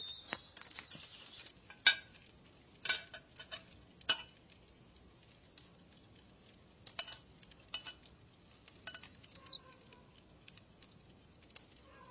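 A metal spoon clinking and scraping against a bowl in short, scattered clinks, the loudest about two, three and four seconds in, then fainter and sparser.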